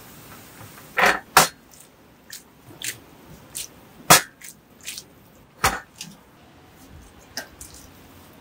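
Spatula scraping and knocking against a stone-coated wok as a seafood stir-fry is tossed: about ten short, sharp strokes at irregular intervals, the loudest about four seconds in, over a faint sizzle.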